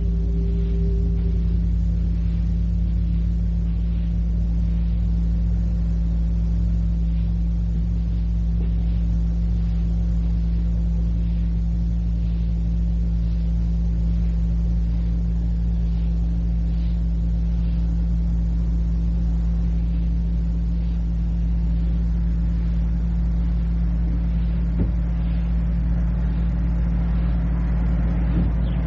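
A steady, unbroken low droning hum with tape hiss on an old cassette field recording, with faint regular high ticks over it.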